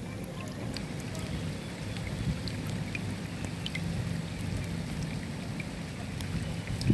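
Steady rain falling, with many separate drops ticking and a low rumble underneath; one sharper drop strikes right at the end.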